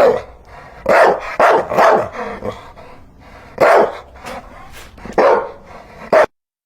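Dog barking repeatedly in loud, irregularly spaced barks, about seven strong ones with fainter ones between. The barking cuts off suddenly near the end.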